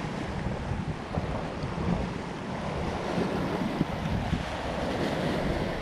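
Sea waves surging and breaking over shoreline rocks just below, with wind buffeting the microphone.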